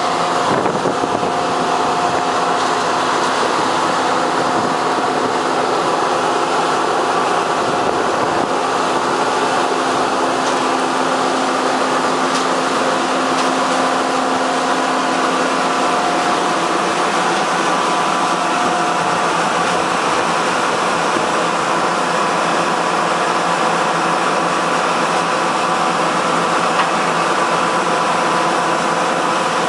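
Corn harvesting machinery running steadily under load, a continuous mechanical din with a steady whine; a lower hum drops out about halfway through.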